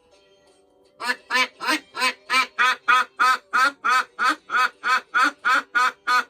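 A duck quacking over and over in a fast, even run of about three quacks a second, starting about a second in. Quiet guitar music plays underneath.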